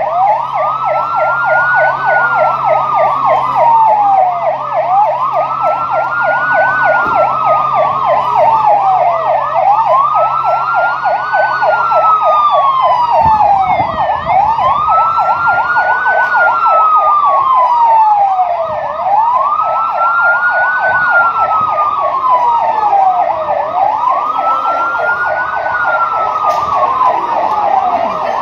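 Ambulance siren sounding continuously: a slow wail rising and falling about every five seconds, six times over, layered over a fast warble.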